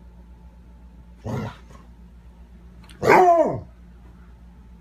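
A dog barking twice: a short, soft bark about a second in, then a louder, longer bark about three seconds in, each falling in pitch.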